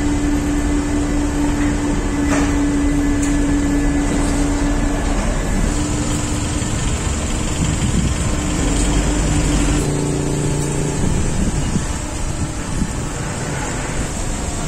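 A large diesel engine idling: a steady drone holding one pitch, which shifts lower about ten seconds in.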